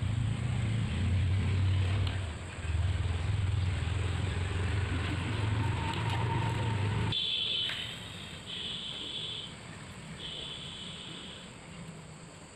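Steady low engine hum, like a motor vehicle running, which cuts off suddenly about seven seconds in; after it come three high, steady tones of about a second each.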